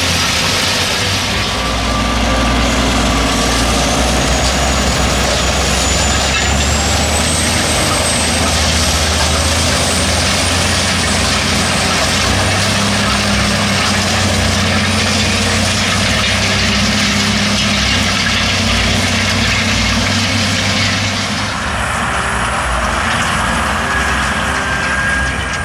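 John Deere 9530 articulated tractor's six-cylinder diesel running steadily under heavy load while pulling a cultivator through stubble, with the hiss and rattle of the discs and tines working dry soil. The high hiss drops away about four seconds before the end, leaving mostly the engine.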